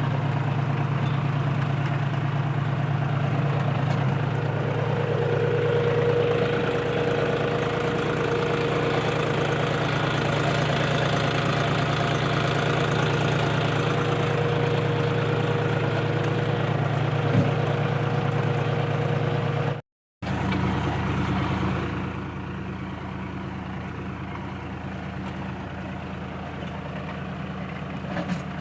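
Tractor engine running steadily while working a garlic seed drill. About two-thirds of the way through, the sound cuts out for a moment, then comes back quieter.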